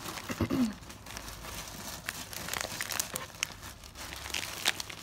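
Clear plastic bags of wax melts crinkling as they are handled in a cardboard box, in many small crackles. A short vocal sound about half a second in.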